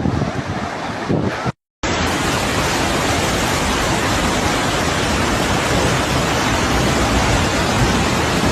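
Rushing floodwater: a steady, dense roar of water, broken about a second and a half in by a brief dropout where one recording cuts to the next.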